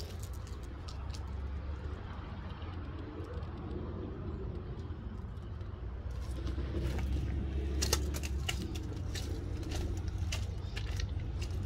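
Footsteps crunching on gravel and dry brush over a steady low rumble, the crunches growing denser from about six seconds in.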